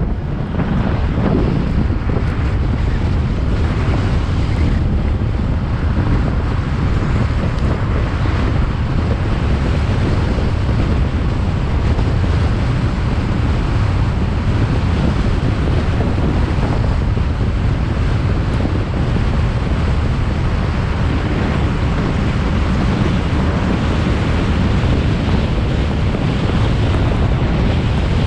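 Strong wind rushing over the microphone: a steady, loud, low buffeting noise.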